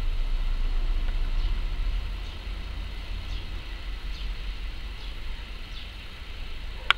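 Squall wind buffeting the microphone in a low, fluttering rumble, strongest in the first two seconds and then easing, the gust front of an approaching thunderstorm. Faint high bird chirps repeat about once a second over it, and a sharp click comes near the end.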